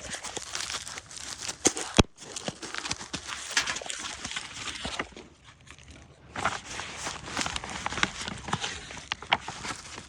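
A cardboard shipping package being opened by hand: rustling and scraping of cardboard and packing material, with scattered knocks and a sharp click about two seconds in.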